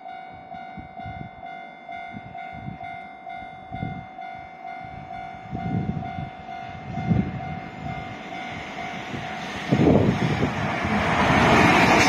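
Japanese level-crossing warning bell ringing steadily in repeated electronic chimes as a JR Freight EF210 electric locomotive hauling container wagons approaches. About ten seconds in the train's noise grows loud as the locomotive reaches the crossing.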